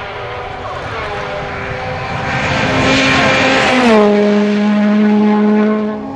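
Citroën DS3 rally car's engine at full throttle on a gravel stage. The note grows louder as the car approaches, then drops in pitch about four seconds in as it goes by.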